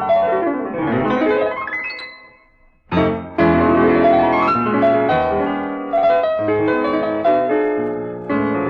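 Solo piano music. It fades away about two seconds in, and a new piano passage starts abruptly about a second later.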